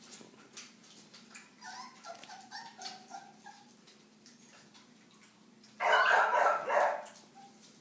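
Five-week-old red-nose pit bull puppies at a water bowl whimpering in a run of short high yips, then one loud yelp lasting about a second near the end. Light clicks of lapping come in between.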